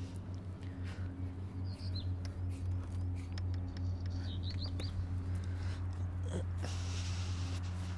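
Steady low hum of an idling truck engine, with short high bird chirps about two seconds in and again near the middle, and a few light clicks.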